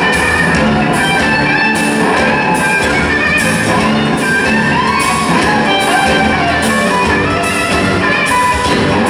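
Live blues band playing, with a lead electric guitar from a Les Paul-style solid-body over a steady drum beat. Cymbal strokes come about every 0.8 s, and a gliding guitar note rises and falls about halfway through.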